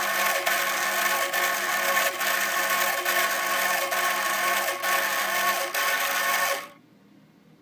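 Small homemade Arduino-controlled mini drill running, its motor whirring with a regular pulse a little faster than once a second, then cutting off suddenly about seven seconds in.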